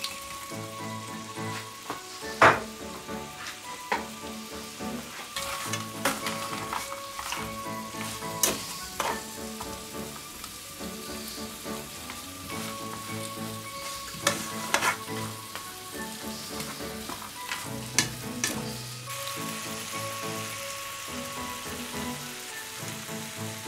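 Banana slices and walnuts sizzling in bubbling butter-and-sugar syrup in a frying pan as they are stirred with a silicone spatula. Sharp knocks come now and then, the loudest a couple of seconds in. Soft background music with sustained chords plays underneath.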